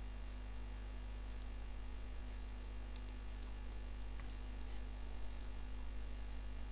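Steady electrical mains hum picked up by the recording microphone, with a faint hiss and a few tiny scattered ticks.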